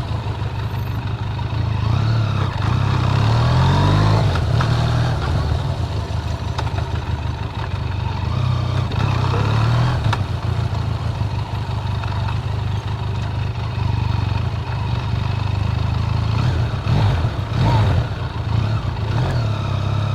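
Benelli TRK 502's parallel-twin engine running through its stock exhaust, the note rising and falling as the throttle is opened and eased off several times, about two seconds in, around nine seconds in and near the end.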